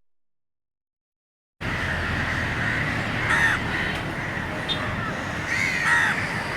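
Dead silence for about a second and a half, then steady outdoor background noise with a few crow caws, one about three seconds in and more near the end.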